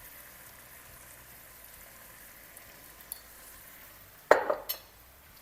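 Chicken and vegetables sizzling softly in a pan, a low steady hiss, broken about four seconds in by a brief loud clatter.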